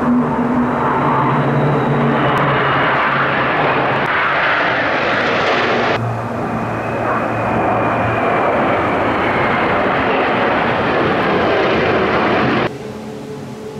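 Patrouille Suisse's Northrop F-5E Tiger II jets flying over in formation, their turbojets giving a loud, steady roar whose hiss grows brighter. The roar breaks off abruptly about six seconds in and starts again with a slowly falling whine. Near the end it drops sharply to the quieter, steady drone of Pilatus PC-7 propeller aircraft.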